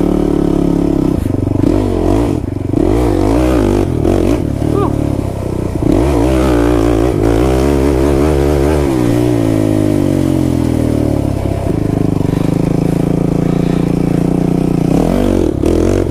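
Kawasaki KFX 450R quad's single-cylinder four-stroke engine running under throttle while being ridden, its revs rising and falling repeatedly.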